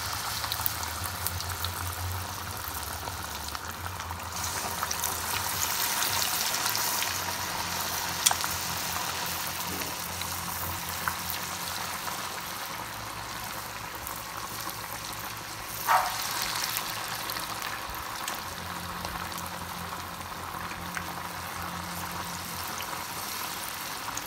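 Breaded chicken pieces deep-frying in a pot of hot oil: a steady bubbling sizzle with fine crackles. A few sharp knocks cut through it, the loudest about two-thirds of the way in.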